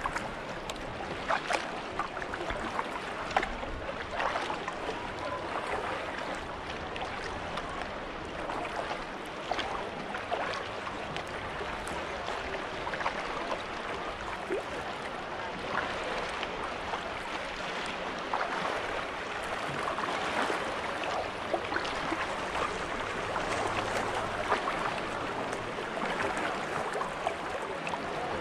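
Sea kayak being paddled through calm sea: paddle blades dipping and splashing with each stroke over a steady wash of water along the hull.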